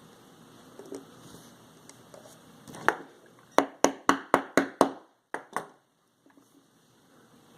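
A run of sharp clicks from small hard parts being handled: one click, then six in quick even succession at about four a second, then two more.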